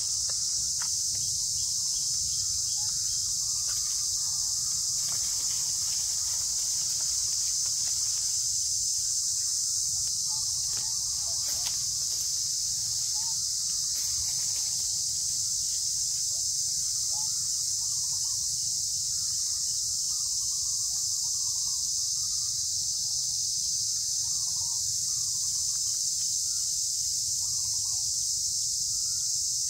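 Insect chorus: a steady, unbroken high-pitched drone, with faint short chirps from other animals scattered through it.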